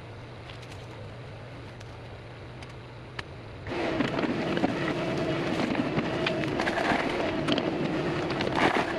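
Compact tractor working: a low steady hum, then about four seconds in the engine comes in much louder with many sharp metallic clanks and scrapes, as from a loader bucket working gravel and fill.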